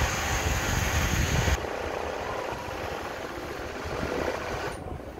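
Industrial embroidery sewing machine running as satin is guided under the needle, a steady mechanical rattle and hum. About a second and a half in it drops suddenly to a quieter steady hum.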